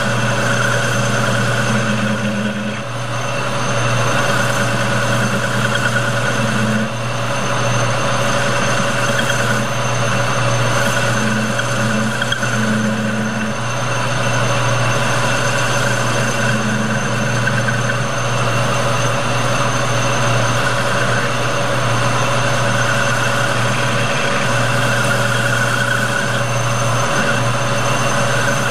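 Metal lathe running steadily, its motor and gear drive giving a constant whine and hum, while a radius form tool cuts a contour on the edge of the spinning metal part. A low hum swells briefly several times.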